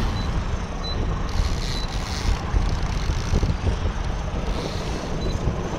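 Steady rumble of wind and motor noise aboard a fishing boat trolling over choppy water, with a brief hiss about a second and a half in.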